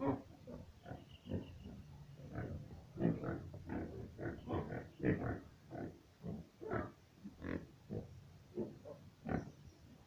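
Domestic pigs grunting over and over, short grunts coming one or two a second.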